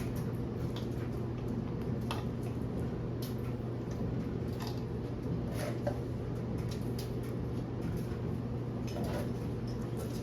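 Light clicks and knocks of parts and packaging being handled, over a steady low hum.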